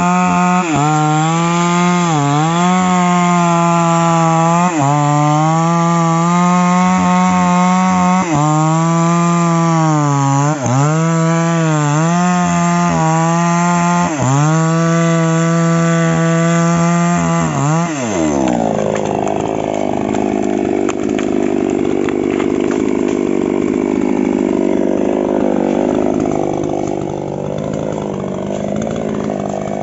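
Falcon mini chainsaw running at full throttle as it cuts through a tree trunk, its engine note dipping briefly several times as the chain bites. About eighteen seconds in the throttle is let off and the engine drops to a rough idle.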